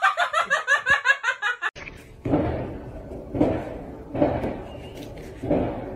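A short rhythmic electronic tune that cuts off about two seconds in. It is followed by a cat giving a series of short, hoarse meows, roughly one a second.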